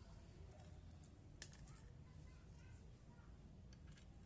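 Near silence with a few faint light clicks, one sharper click about a second and a half in.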